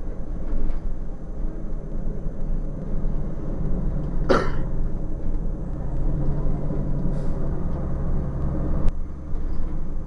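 Cummins ISC diesel engine of a 2002 Blue Bird CS transit bus running with a steady low drone, heard from inside the passenger cabin. A short burst of noise comes about four seconds in, and a sharp click near the end, where the engine note changes.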